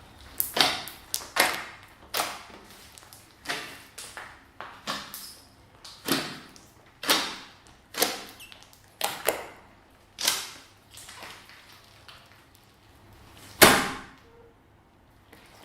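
Slime being pressed and folded by hand, a string of short wet squelches and pops, one or two a second, with the loudest near the end.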